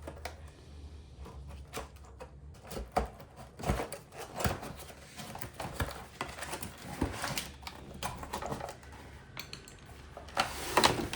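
A cardboard service-kit box being opened and its contents handled, with rustling and irregular knocks and clatters as parts are taken out.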